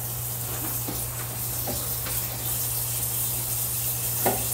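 Steady hiss over a low hum, with a few soft clicks and smacks as a boiled lesser yam is peeled and eaten; the loudest click comes near the end.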